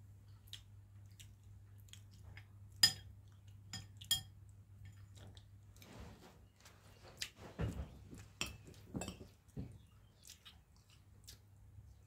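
Scattered light clinks and taps of tableware, with two sharper clinks about three and four seconds in and a run of softer knocks a few seconds later, over a low steady hum.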